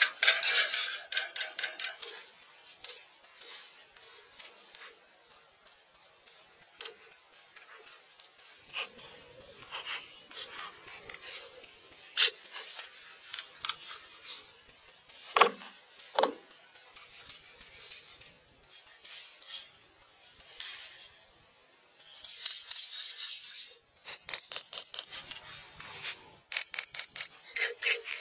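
Bursts of quick, even scratching strokes, about four or five a second, at the start and again over the last several seconds, with lighter scraping between and a few sharp clicks near the middle.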